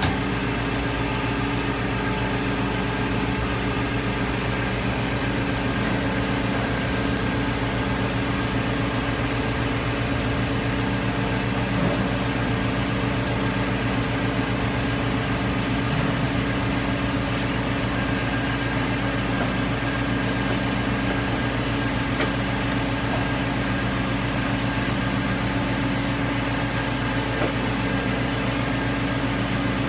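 Doosan Puma 240MB CNC turning centre running with a steady hum made of several fixed tones. For several seconds from about four seconds in, a thin high whine joins it while the tailstock and axes are moved.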